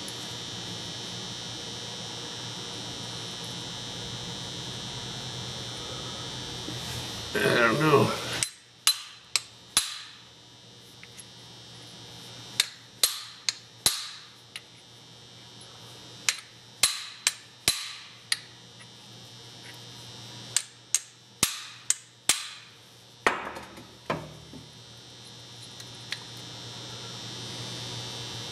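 Light hammer taps on the metal parts of a Hutchens air sander, driving a part out of its housing. The sharp taps with short ringing decays start about a third of the way in and come in quick groups of two to five, about seventeen in all.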